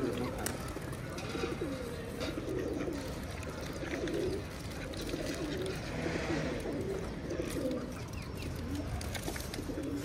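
Domestic pigeons cooing: many low coos repeating and overlapping.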